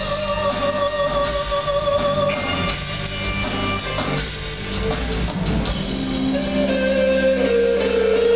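Live rock band playing, led by electric guitar holding long, slightly wavering notes over a steady low bass drone, with a new held note coming in about six seconds in.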